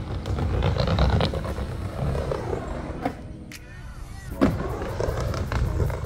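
Skateboard wheels rolling fast down a megaramp, a steady rough rumble, with a couple of sharp knocks partway through.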